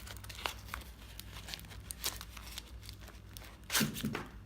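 Watch packaging being torn open and crinkled by hand: scattered crackles and rustles, with a louder burst near the end.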